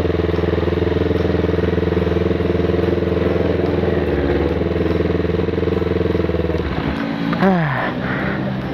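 Yamaha YZF R15's single-cylinder four-stroke engine running steadily at low speed or idle. About seven seconds in its note changes and a short falling sweep is heard.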